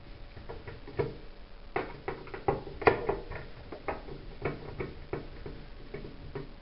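Phillips screwdriver undoing a screw that holds a washing machine's door interlock: irregular small clicks and ticks, several a second, loudest about three seconds in.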